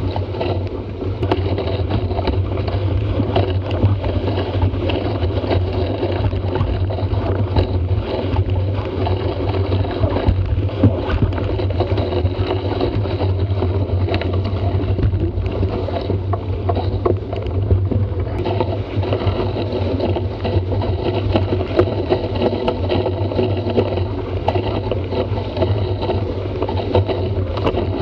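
Steady rush of water and spray off a Prindle 16 catamaran's hull slicing through chop at about 15 knots, with wind buffeting the microphone.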